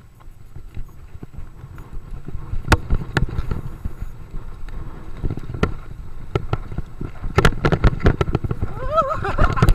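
Mountain bike rattling and clattering over a rough dirt trail, with wind buffeting the microphone as a low rumble. The knocks and rattles grow thicker from about two seconds in, and a brief wavering squeal comes near the end.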